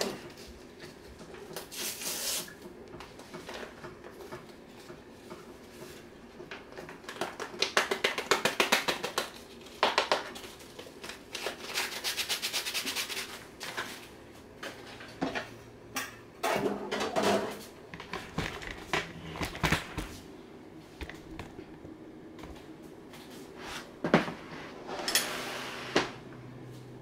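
A ranch seasoning packet shaken out over a plastic mixing bowl in two spells of quick rhythmic rustling, with a few scattered clicks and knocks of kitchen items handled on the counter.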